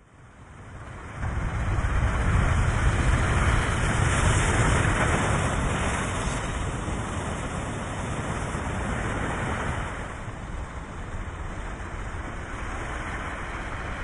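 Roar of a huge breaking ocean wave and its whitewater: a dense rushing noise with a deep rumble. It swells up over the first second or so and eases off a little after about ten seconds.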